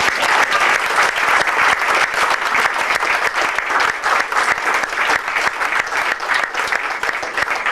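Audience applauding: a roomful of people clapping steadily and loudly.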